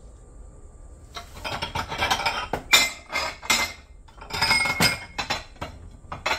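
Dishes, containers and utensils clinking and clattering as they are handled, in several quick bursts that start about a second in.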